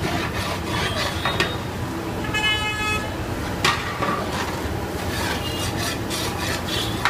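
Long metal spatula scraping and stirring masala in oil around a large aluminium cooking pot, with a few sharp knocks of the spatula against the pot. A vehicle horn toots briefly in the background about two seconds in.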